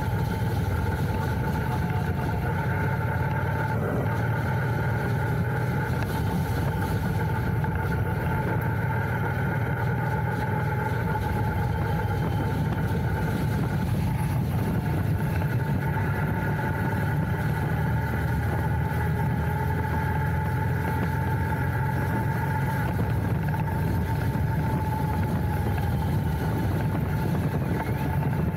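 Royal Enfield Interceptor 650's 648 cc parallel-twin engine running at a steady speed.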